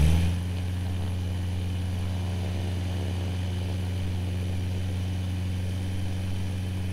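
Rotax 915iS engine of a VL3 Evolution ultralight idling steadily, turning its four-blade propeller, with an even low hum that does not change in pitch or level.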